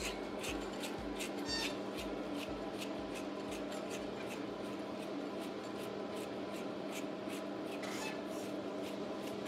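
Repeated slicker-brush strokes through a poodle's curly coat, about two a second, as tangles and mats on the chest are brushed out. A high-velocity dog dryer hums steadily and low underneath.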